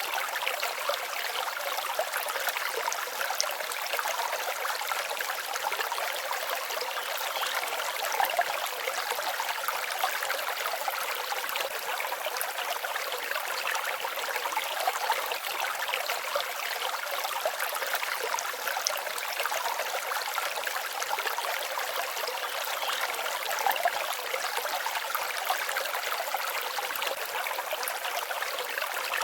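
Forest stream babbling steadily, a light trickling and splashing with no low rumble.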